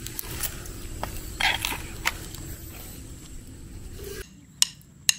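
Fire crackling and popping under a smoking heap of leaves covering crabs and potatoes, irregular sharp pops over a low steady rumble. The sound drops out about four seconds in, leaving two sharp clicks near the end.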